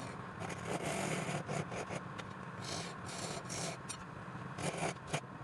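Wood lathe motor running with a steady hum while something scrapes against the spinning wood in short, irregular strokes.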